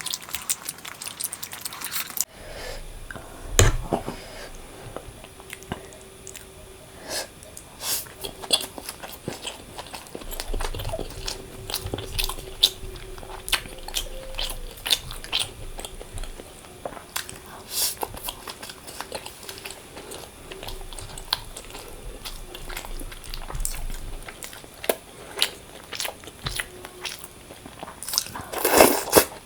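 Close-up eating sounds: a person biting and chewing, with many short wet clicks and a few louder crunches.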